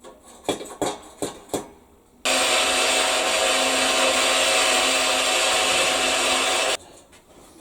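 A few light metal knocks and clatters, then an electric power tool running loud and steady for about four and a half seconds: a hissing noise with a steady hum under it. It starts and stops abruptly.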